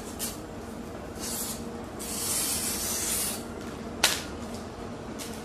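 Young coconut palm leaf strips rustling and swishing against each other as they are handled for weaving ketupat, with a longer swish about two to three seconds in and one sharp click about four seconds in.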